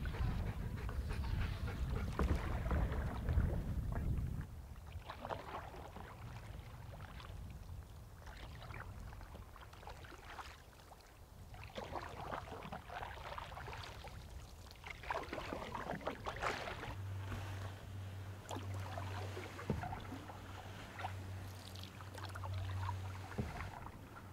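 Canoe paddle strokes dipping and swishing in lake water every few seconds. Wind rumbles on the microphone for the first four seconds, and a low steady hum joins in the last seven seconds.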